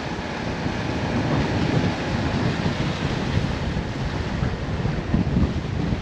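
Strong wind of about 25 knots buffeting the microphone over rough open seas, with the rush of breaking waves; a steady, gusting roar heaviest in the low end.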